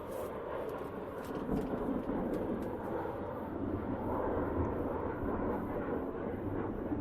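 Thunderstorm noise: a steady low rumbling haze of rain and wind, swelling slightly about a second and a half in and again a few seconds later.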